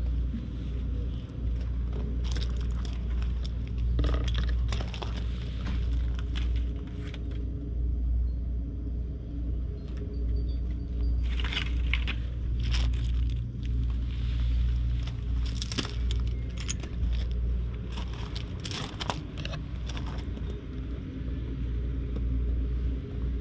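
Steady low rumble of wind on the microphone, with scattered bursts of rustling and crackling.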